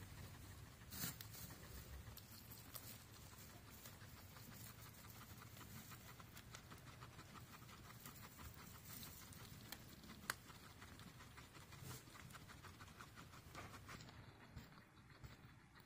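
Faint rustling and light clicking of guinea pigs moving about in dry hay, with a sharper tap about a second in and another about ten seconds in.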